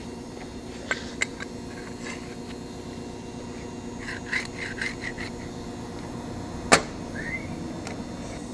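Small steel parts clinking and tapping on a steel welding table as they are handled: two clicks near the start, a quick run of about five light clinks around the middle, and one sharp, loud metal knock about two-thirds through, over a steady background hum.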